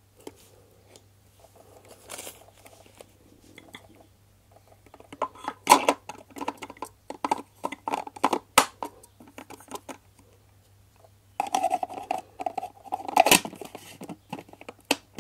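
Hard plastic parts of a food chopper being handled and fitted together. A screwdriver tightens the base screws, then the bowl and lid are seated, giving runs of clicks and clatters around the middle and again near the end, over a faint steady hum.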